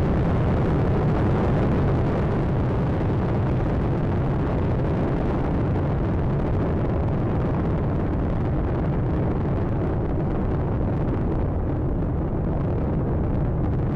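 Space Shuttle Atlantis climbing after liftoff: the steady rumble of its two solid rocket boosters and three main engines, heaviest in the deep low end. The upper crackle thins slightly toward the end.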